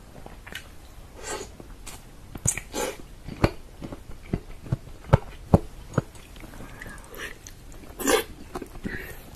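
Close-miked mouth sounds of eating soft, fall-off-the-bone pressure-cooked chicken in tomato sauce. There is wet chewing and slurping of meat strands, with irregular sharp smacking clicks, loudest a little past the middle.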